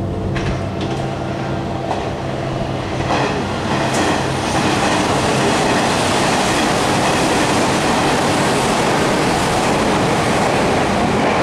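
Hanshin Railway limited express electric train running through the station without stopping: a steady low hum gives way, about three seconds in, to the loud, continuous rush of wheels on rail, which holds for the rest of the pass.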